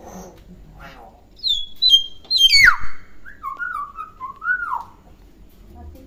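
Common hill myna whistling: short high whistle notes, then a loud whistle sweeping steeply down, then a lower wavering whistle lasting about two seconds.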